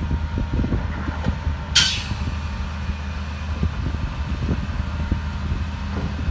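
Heavy diesel engine of earthmoving machinery running steadily, with a low rumble and knocking. About two seconds in, a short sharp hiss cuts through.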